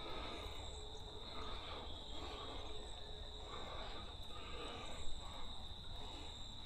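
Steady high-pitched insect chorus ringing on one unbroken note, with soft swishes repeating about every two-thirds of a second underneath.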